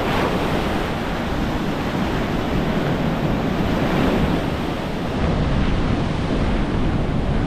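Ocean waves breaking and washing up the beach, with wind buffeting the microphone in a steady low rumble.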